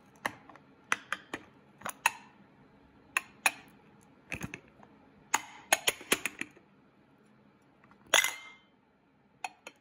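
Ramekin knocking and clinking against a ceramic plate in a string of sharp irregular taps as it is shaken to release an upturned flan, with one louder, longer clatter about eight seconds in.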